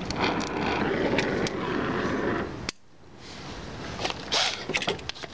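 Oxyacetylene welding torch flame hissing steadily under a car's running board, shut off with a sharp pop about two and a half seconds in. Short scrapes and rustles follow near the end.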